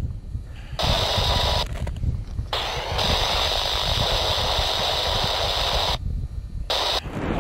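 Wind buffeting the camera microphone: a loud, rumbling rush of noise that drops out briefly twice.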